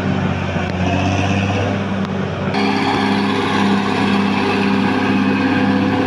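Caterpillar D6R XL bulldozer's diesel engine running steadily under work. The sound turns abruptly brighter and hissier about two and a half seconds in.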